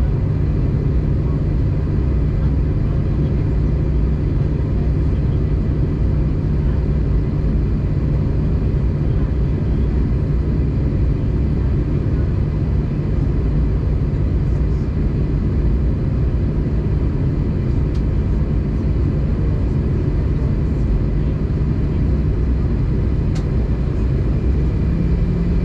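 Airbus A320 cabin noise in flight on the approach: the steady, deep drone of the engines and the airflow heard inside the cabin. Near the end a low tone edges up slightly in pitch.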